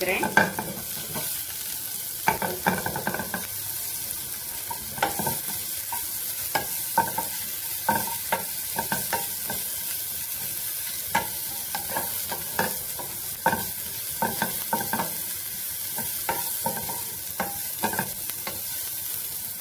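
Sliced onions and chilli flakes sizzling in hot oil in a nonstick pan, with a wooden spatula stirring them in irregular scrapes and taps against the pan.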